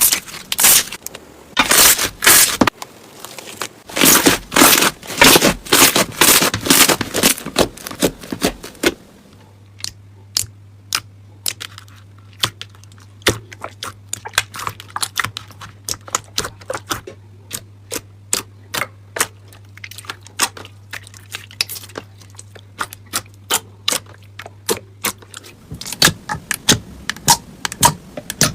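Slime being worked by hand, giving dense bursts of crackling and popping for the first several seconds, then a long run of sharp separate clicks and pops over a low steady hum, growing denser again near the end.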